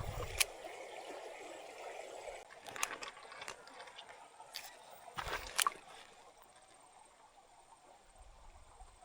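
Shallow creek running, with a few sharp clicks and knocks over the first six seconds; then the water sound drops away to near quiet.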